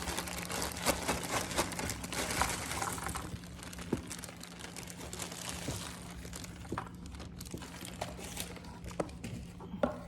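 Plastic bag crinkling and cardboard jigsaw puzzle pieces rustling and clicking as a new puzzle is opened and its pieces tipped out. The crackling is busiest for the first three seconds, then thins to scattered clicks of pieces being moved about.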